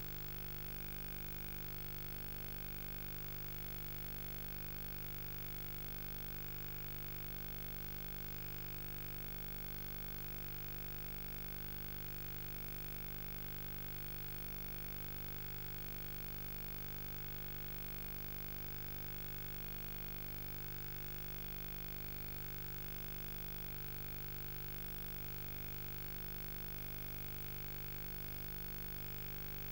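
Steady electrical hum with a layer of hiss and no programme sound: the blank audio track of a Betamax recording that has no sound.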